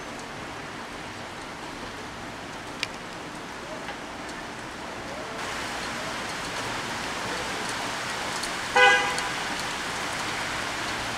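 Heavy rain falling steadily, a hiss that grows louder about five seconds in. About nine seconds in a car horn gives one short toot, the loudest sound.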